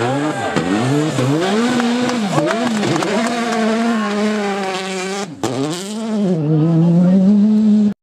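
Peugeot 208 rally car's four-cylinder engine revving hard at full throttle, its pitch rising and falling again and again with each gear change and lift, then climbing and holding high revs until the sound cuts off suddenly.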